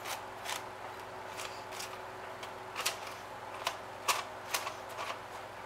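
A spoon pressing and tapping a crushed chocolate biscuit and melted butter base down into a springform tin, giving about a dozen light, irregularly spaced clicks.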